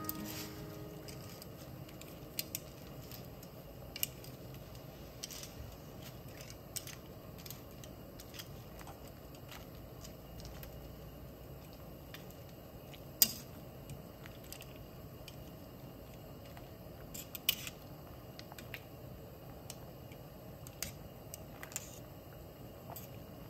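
Metal tongs clinking and scraping against the enamelled pot as they stir spaghetti in boiling water, over the steady sound of the boil. The sharp clinks come every second or two, the loudest about 13 seconds in.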